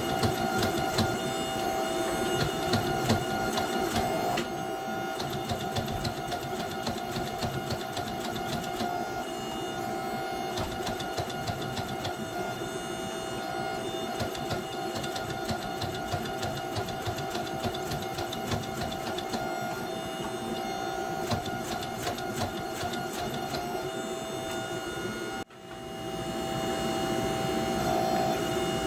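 Hydraulic forging press running with a steady motor-and-pump whine while it squeezes and fullers a red-hot steel hatchet head, with scattered small ticks and cracks from the hot metal and dies. The sound cuts out for a moment about 25 seconds in, then the whine returns.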